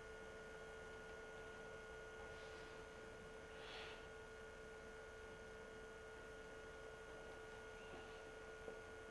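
Near silence with a faint steady electrical hum, and one brief faint noise a little under four seconds in.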